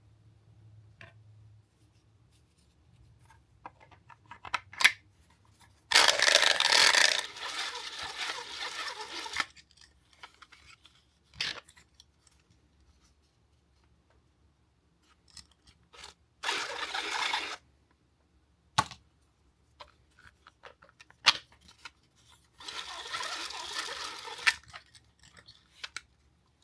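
3D-printed plastic spool spinning on airsoft BBs used as ball bearings, giving a rough rolling rattle in three spells of a few seconds, the first the loudest. Sharp single clicks and knocks from handling the spool fall between the spells.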